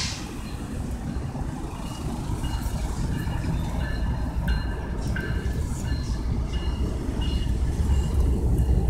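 Freight train rolling past, a low steady rumble of the rail cars that grows louder towards the end, with a few short high-pitched tones over it.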